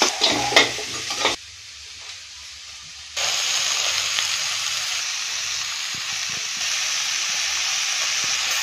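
Sliced onions and curry leaves frying in oil in a kadai. For the first second and a half a steel spatula scrapes and stirs them in several quick strokes. After a quieter couple of seconds, a steady, even sizzle runs from about three seconds in.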